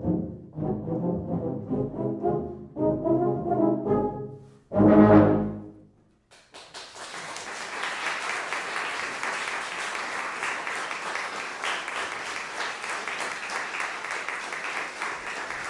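Tuba and euphonium ensemble playing short chordal phrases, then one loud final chord held for about a second, ending about six seconds in. After a brief silence the audience breaks into steady applause.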